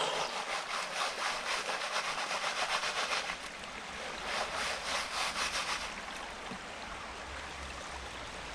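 Gold pan of wet gravel being shaken rapidly by hand, a fast rhythmic rattling swish in two spells, the first about three seconds long and the second shorter, a little after the middle.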